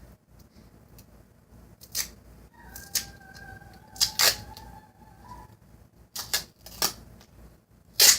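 Tape being cut by hand: a run of sharp snips and clicks spread across several seconds, some coming in quick pairs.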